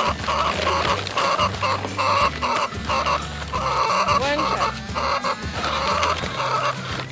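Background music with a regular rhythm, with chickens clucking behind it.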